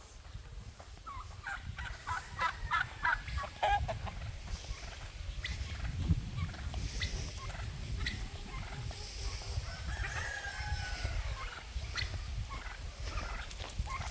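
Free-ranging farmyard poultry calling, chickens and turkeys: a quick run of short calls about two to four seconds in, then scattered calls, over a low steady rumble.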